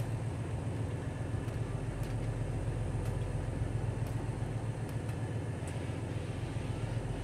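Steady low hum of an idling semi-truck engine, heard inside the cab, with a few faint light clicks.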